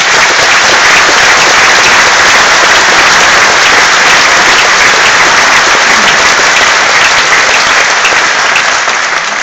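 Audience applauding in a large concert hall: dense clapping that starts suddenly and eases slightly near the end.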